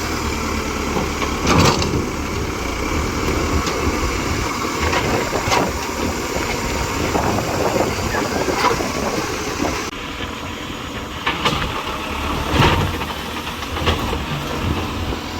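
An engine running steadily under irregular sharp knocks of digging into rock and earth, about one every two or three seconds.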